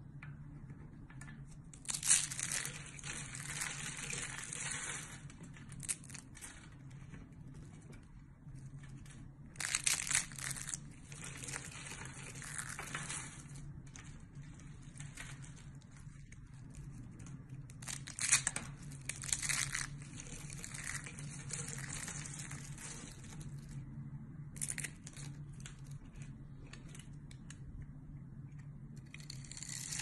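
Dry Camay bar soap crunching and crackling as it is cut and crumbled by hand, with flakes and small cubes breaking off. The sound comes in bouts of a few seconds with short pauses, over a steady low hum.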